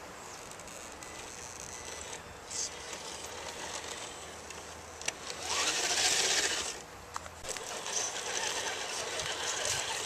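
Scale RC rock crawler (Axial SCX10) running, its electric motor and geared drivetrain whirring as it crawls over rock and dirt. Just past the middle the sound rises in pitch and a louder rushing noise lasts about a second before it settles back.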